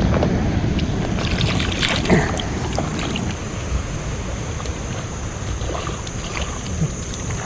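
Steady rush of stream water with wind buffeting the microphone, and a few brief knocks or splashes about one to two seconds in.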